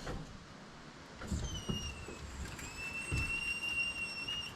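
A thin high-pitched squeal, heard twice: a short one falling slightly in pitch, then a longer steady one. A few dull low knocks fall between them.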